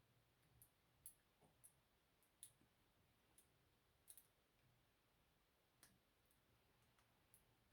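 Faint, irregular clicks of a half-diamond pick working the pin stacks of a Master 575 padlock, about ten scattered ticks.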